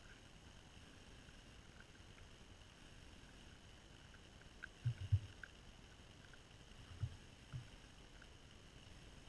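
Whitetail buck feeding right up against the camera: a few dull low thumps, a cluster about five seconds in and two more around seven seconds. Faint, scattered short chirps sound over quiet woods.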